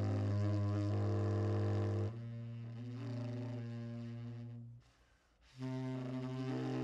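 Tenor saxophone playing long, held low notes, changing note about two seconds in. It breaks off briefly a little before five seconds and comes back in on another sustained low note.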